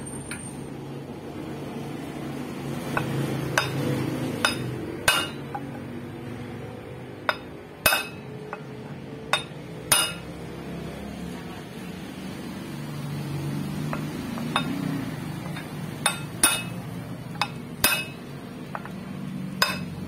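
Light hammer taps on the aluminium housing of a vacuum cleaner motor: about a dozen sharp metallic knocks at uneven intervals over a steady low hum. The taps are kept soft on purpose so the housing does not deform while it is worked apart.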